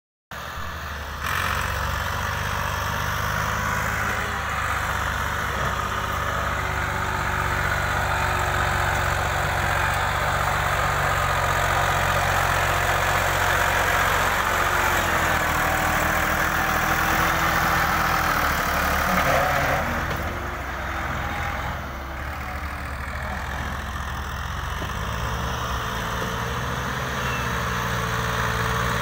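Farm tractor's diesel engine running steadily as it hauls a loaded earth trolley, easing off briefly about two-thirds of the way through and then picking up again.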